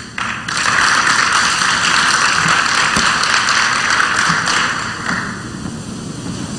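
Audience applauding at the end of a lecture, the clapping dying away about five seconds in.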